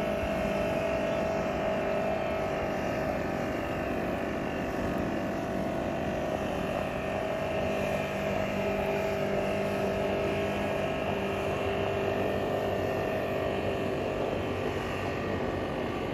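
Boat motor running at a steady cruising speed with an unchanging hum; a lower tone joins in about halfway through.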